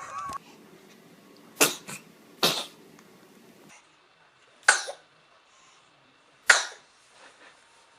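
Baby sneezes: four short, sharp ones, spaced a second or two apart.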